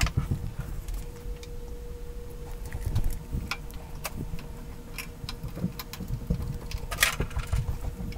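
Handling noise: rustling and scattered knocks as the camera is moved and the person crouches and shifts about, with a louder rustle about seven seconds in, over a faint steady hum.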